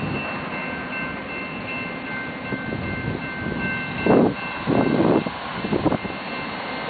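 Railroad grade-crossing warning bell ringing as the gates rise, over the low rumble of a passing train, with a few short louder noises in the second half.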